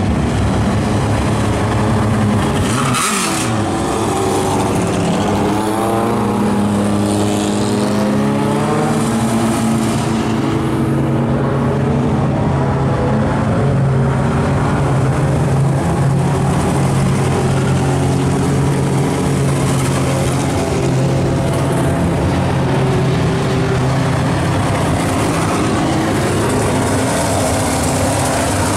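Several dirt late model race cars' V8 engines running at low, steady speed on a slow roll-in lap, their overlapping engine notes shifting as the cars go by. One car passes close with a quick rise and fall in pitch about three seconds in.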